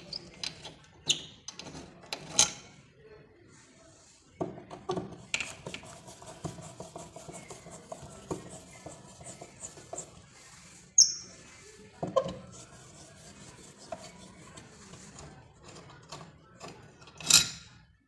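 Metal clicks, clinks and scrapes of hand work on a steel lever door handle and its backplate, including a screwdriver turning out a backplate screw, with several sharp louder clicks along the way.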